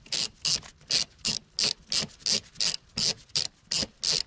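Ratchet wrench with a 10 mm socket and extension, set to loosen, backing out a bolt: a short rasping run of ratchet clicks on each back-swing of the handle, about three a second.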